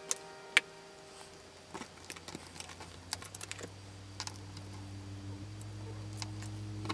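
Small sharp clicks and taps of fingers handling and prying at a cracked touchscreen's thin glass and its plastic-edged frame, a couple of crisp clicks in the first second, then a scatter of lighter ticks.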